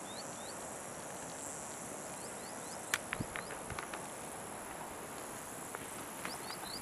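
Dusk insect ambience: a steady high-pitched insect drone with short rising chirps repeating. A cluster of sharp clicks and knocks comes about three seconds in, and a few more come near the end.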